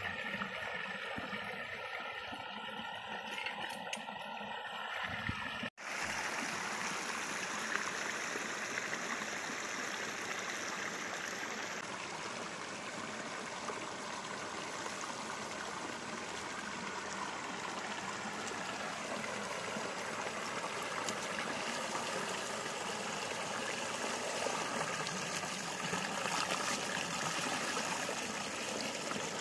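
Steady rush of water flowing along a small stream channel. About six seconds in, the sound breaks off for an instant and comes back as a fuller, even rush.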